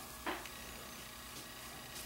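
Quiet room tone with a faint steady hum, and one brief soft sound about a quarter second in.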